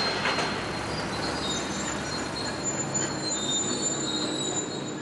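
Komatsu crawler excavators working a rubble demolition site: a steady engine rumble with grinding noise, and thin high squeals joining in from about a second and a half in.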